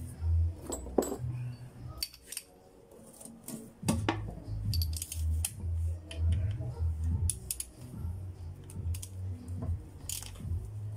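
Metal hand tools clinking and a socket ratchet working the top-cover bolts of an Isuzu C240 manual transmission, in short scattered clicks. Background music with a low pulsing beat runs underneath.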